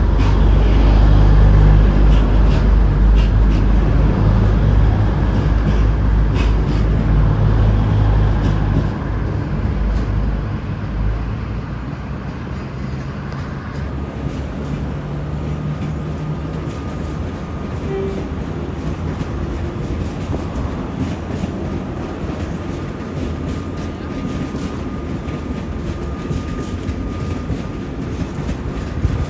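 V/Line VLocity diesel multiple unit train, two sets coupled, running out of the station. Heavy diesel engine rumble is loudest for the first ten seconds or so, then eases to a steadier, quieter running noise.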